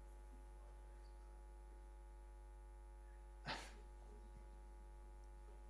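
Near silence with a steady electrical hum; about three and a half seconds in comes one short, sharp noise.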